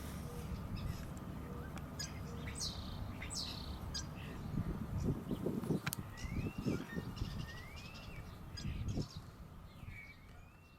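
Birds chirping and calling, with several short whistled notes that rise and fall, over a low outdoor rumble that swells in the middle; the sound fades out near the end.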